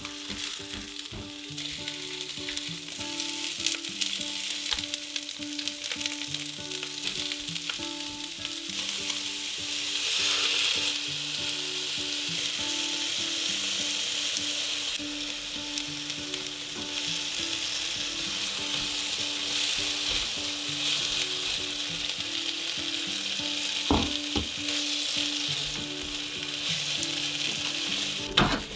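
Chicken breast and summer vegetables sizzling as they are stir-fried in a nonstick frying pan, swelling louder about ten seconds in. A couple of sharp knocks come near the end.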